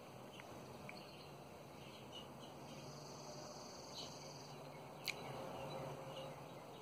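Faint outdoor ambience with scattered short high chirps, a steady high buzz for about two seconds in the middle, and a single sharp click about five seconds in.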